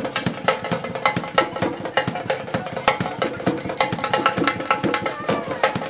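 Music with busy percussion: quick, sharp hits several times a second over steady held instrument notes.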